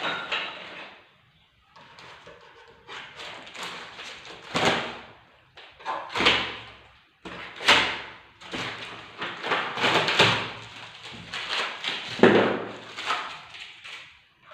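Unboxing handling noise as TV packaging and parts are moved about: a run of scrapes, rustles and sharp knocks, the loudest several seconds apart.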